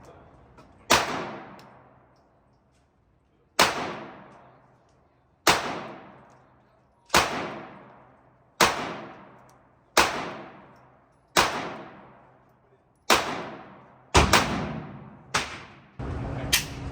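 Firearm shots fired one at a time, about a dozen roughly every second and a half, each with a long echoing tail. Two come in quick succession near the end.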